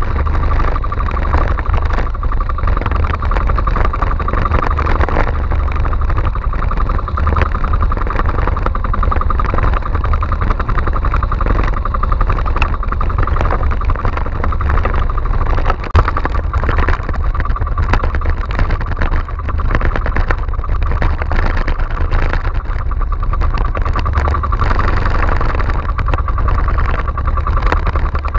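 Outrigger fishing boat's engine running steadily under way, with wind rumble on the microphone and the hull splashing through rough waves. One sharp knock about halfway through.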